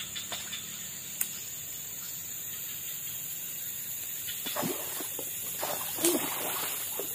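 Splashes on the surface of a swamp pond, several short ones late on with the loudest about six seconds in, as a fishing lure is worked for snakehead. A single sharp click about a second in.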